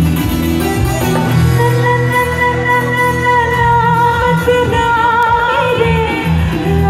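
Live music over a sound system: a singer holding long notes that waver in pitch, over instrumental backing with a steady low bass line.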